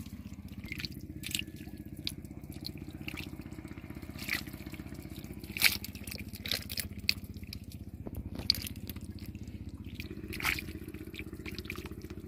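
Wet squelches, drips and splats of mud and water as hands scoop through pond mud and drop fish into a bucket, with a handful of sharper wet smacks scattered through, the loudest a little past halfway. A steady low drone runs underneath.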